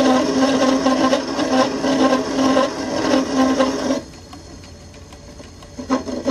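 Homemade small CNC lathe cutting a groove in a 48 mm S45C steel bar with a 2 mm grooving tool at 100 rpm: a steady grinding cutting noise over a hum from the spindle drive. The noise drops away sharply about four seconds in, then the loud cutting noise returns just before the end.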